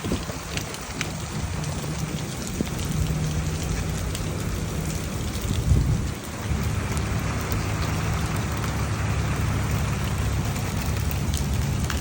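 Heavy rain pouring steadily, with scattered sharp ticks of drops or hailstones striking. A steady low hum runs underneath, and the sound swells briefly a little before the middle.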